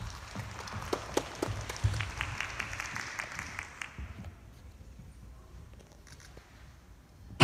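Audience applauding, with the individual claps distinct. The clapping fades out about four seconds in and is followed by quiet.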